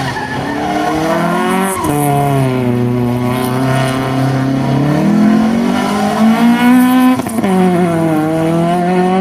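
Peugeot 306 rally car engine revving hard through a stage, loud. Its pitch drops sharply about two seconds in, climbs again, and drops sharply once more about seven seconds in.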